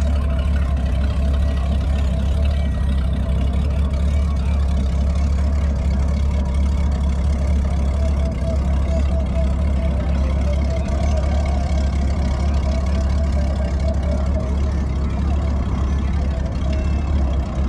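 A steady low engine hum runs at the same pitch and level throughout, with a faint murmur of voices over it.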